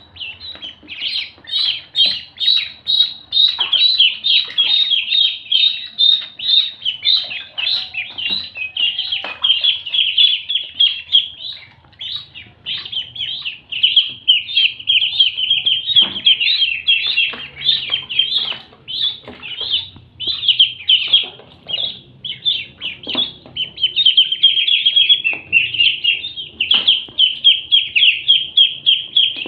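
A group of ducklings peeping, many rapid, high-pitched calls overlapping almost without a break, with brief lulls about twelve and twenty seconds in.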